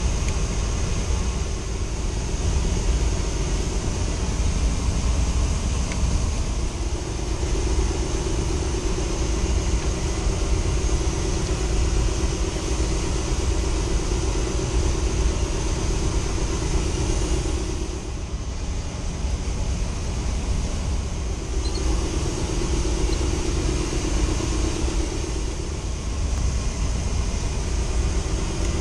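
Steady low rumble of running machinery in an HVAC equipment room, swelling and easing slightly over several seconds.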